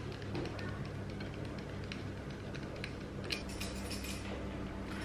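Faint, light scrapes and clicks of a hand peeler shaving a block of Parmesan, over a steady low hum.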